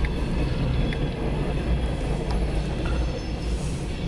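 Empty coal train's hopper cars rolling past: a steady low rumble with a few faint clicks.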